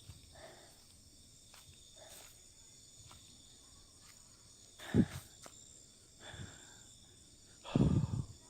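Crickets chirring steadily in high, even tones, with a sharp knock about five seconds in and a louder rustling thump near the end.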